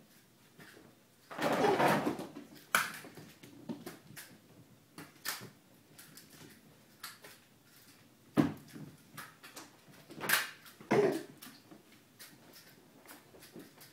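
Kittens scampering, pouncing and landing on a hardwood floor: scattered thumps and light paw clicks, with a louder scuffle about two seconds in and several heavier thumps later on.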